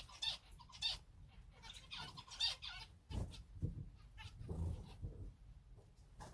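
Small cage birds, finches and canaries, chirping with short repeated calls, with some low rumbling and knocking around the middle.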